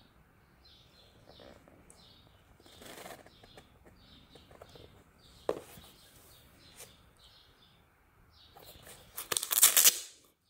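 Hands handling a Jordan Zion 2 basketball shoe, its leather and mesh upper rustling and creasing, then the hook-and-loop strap over the laces ripped open near the end, the loudest sound.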